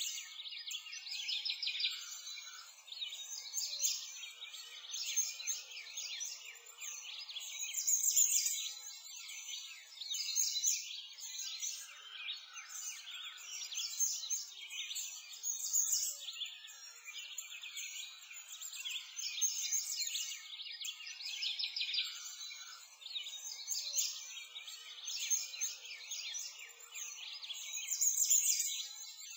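A chorus of small songbirds chirping and singing continuously, many quick high-pitched notes overlapping and swelling every couple of seconds.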